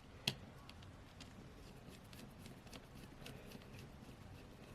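A small screwdriver driving tiny screws into a phone's frame: one sharp click near the start, then faint scattered ticks and light scraping of metal on metal.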